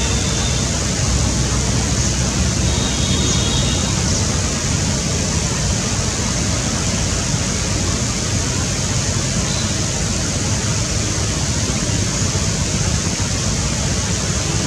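Steady, even rushing background noise, with a faint high thin whistle about three seconds in.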